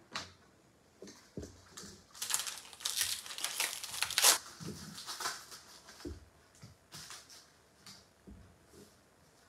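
A foil Upper Deck Trilogy hockey card pack wrapper crinkling and tearing as it is ripped open, densest about two to four seconds in. After that come a few separate light taps and rustles as the cards are handled.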